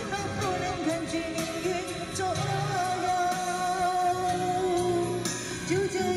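A woman singing a slow pop ballad into a handheld microphone over instrumental backing, holding long notes with a slight waver in pitch.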